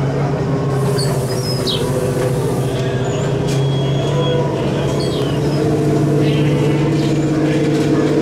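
Small ride tractor running along its guide track with a steady low hum.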